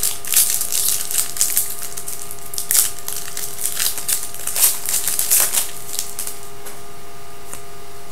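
Trading cards being handled and flicked through by hand, with crinkling pack wrappers: an irregular run of sharp flicks and snaps, busiest in the first six seconds.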